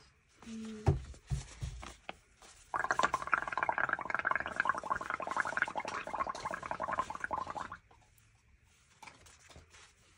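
Bubbling as someone blows through a straw into a tray of soapy paint, a dense run of bubbles lasting about five seconds from about three seconds in. A thump about a second in.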